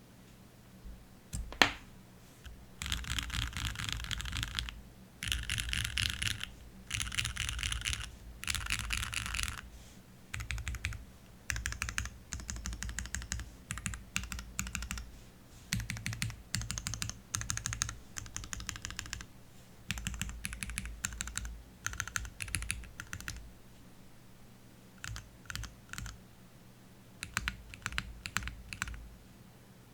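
Typing on an o-ring mounted Tofu60 Redux 60% mechanical keyboard with Cherry MX2A Black linear switches and GMK doubleshot keycaps, in quick runs of keystrokes a few seconds long with short pauses between. A single sharp click about a second and a half in is the loudest moment, and a faint steady hum lies underneath.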